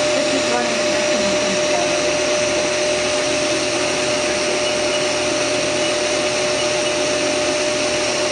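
Haas SR100 CNC router running: a steady whirring noise with a constant whine.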